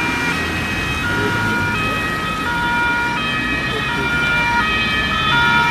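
Several German two-tone emergency-vehicle sirens (Martinshorn) sounding at once from a passing convoy, each alternating between its two pitches out of step with the others, over the steady engine and tyre noise of the vehicles.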